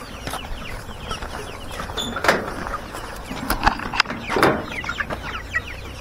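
A large flock of chickens calling, with many short, high, overlapping peeps and clucks. A few sharper knocks come about two and four seconds in.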